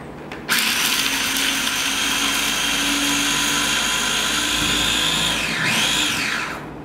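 Small electric food processor switched on about half a second in, its motor running with a steady whine for about five seconds as the blade chops fresh cilantro with peppercorns and sea salt, then winding down with a falling pitch near the end.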